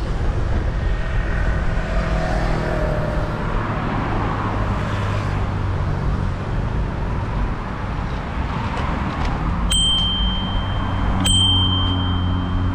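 Bicycle bell rung twice, about a second and a half apart, each ding ringing on and fading, as a warning to pedestrians on the path ahead. Underneath runs a steady low rumble of wind and tyres from riding.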